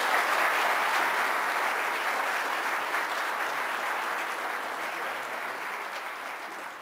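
Audience applauding at the end of a lecture, the applause slowly dying down.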